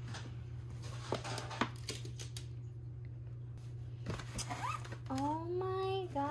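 Light rustles and taps of a stiff paper shopping bag and its ribbon being handled, over a steady low hum. About four and a half seconds in a voice slides upward, then from about five seconds hums a held note.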